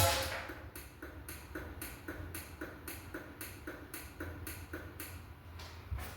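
Garage door opener motor cutting off at the end of its travel and dying away in the first moment, followed by a steady run of soft ticks about twice a second.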